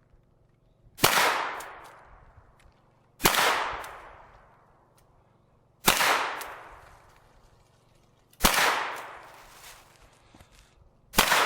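Five single shots from a Hi-Point 995 9mm carbine, fired slowly about two and a half seconds apart, the last near the end; each sharp report is followed by an echo that dies away over about a second.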